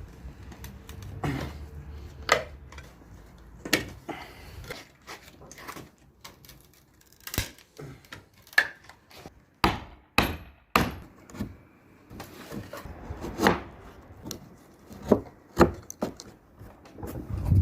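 Pieces of pallet wood knocking and clattering against each other, in irregular sharp knocks, about a dozen, some loud and some faint.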